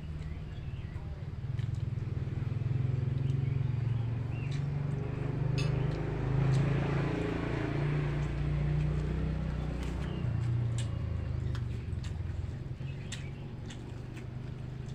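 A motor vehicle engine running, growing louder over a few seconds and then fading away again, like a vehicle passing by, with a few light clicks over it.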